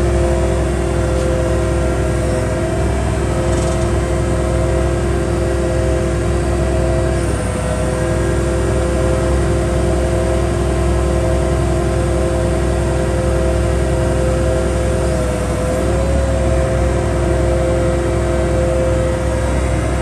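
2019 Dynapac SD2500CS asphalt paver running steadily with its spreading auger turning: a constant machine hum with several held tones over a low rumble. The tones dip briefly twice.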